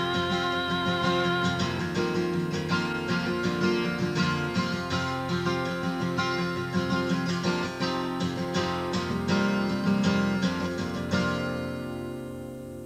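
Acoustic guitar strummed steadily through the end of a folk song, with a last held sung note in the first second or two. About 11 seconds in comes the final strum, and the chord rings and fades away.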